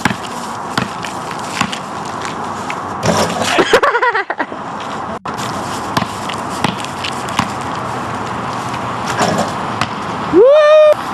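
Basketball dribbled on an asphalt court: a string of short bounces over a steady background hiss. Near the end a loud pitched tone rises and then holds for about half a second.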